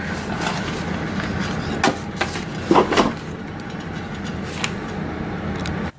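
A steady low hum with several sharp clicks and knocks, consistent with a wiring harness and its plastic connectors being handled and plugged in for a bench test. The hum cuts off suddenly at the very end.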